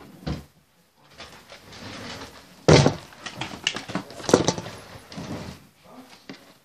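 A run of knocks and thuds, the loudest a sharp bang about two and a half seconds in, followed by a cluster of smaller clatters and clicks.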